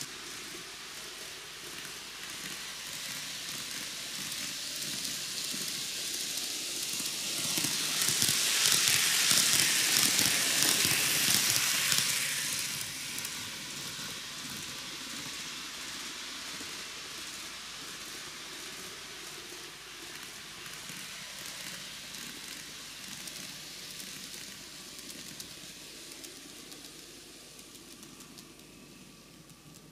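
N-gauge model electric train, a TOMIX 733-3000 series set, running on TOMIX track: a steady rushing rattle of its wheels on the rails and its motor. It swells to its loudest about a third of the way in as the train passes close, then slowly fades.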